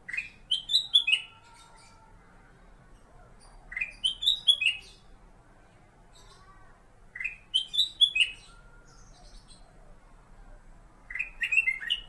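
Kutilang emas (Pycnonotus melanicterus), a bulbul, singing. It gives a short phrase of four or five quick, clear whistled notes, and repeats it four times about every three and a half seconds.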